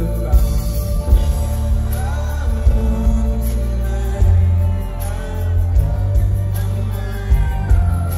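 Live band music: a male voice sings over electric guitar, with a heavy low end and steady beat.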